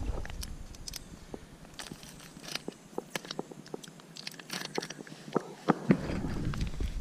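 Scattered light clicks and crinkles of hands handling food and a metal cooking pot during camp cooking, with a low rumble setting in near the end.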